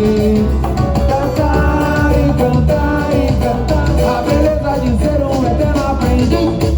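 Brazilian samba-style music with a melody line over a steady bass.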